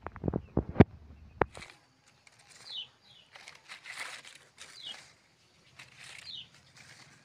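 A few sharp clicks and knocks in the first second and a half, then rustling of dry durian leaves being handled, with a bird repeating a short falling chirp every second or so.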